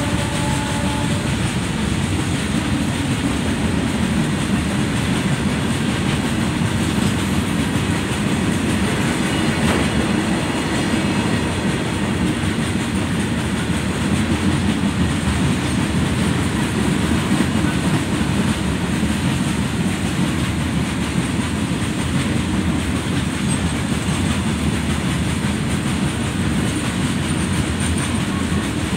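Long Indian Railways goods train of open box wagons rolling past at close range, a steady rumble of wheels on the rails.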